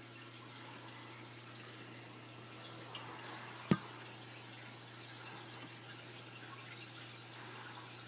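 Faint water dripping and trickling in a terrarium over a steady low hum, with one sharp click a little before halfway.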